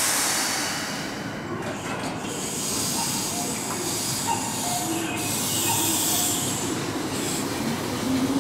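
Keihan electric train at a station platform, running with a steady rumbling wheel and car noise and a high hiss of air. Near the end a traction-motor whine rises in pitch as the train gathers speed.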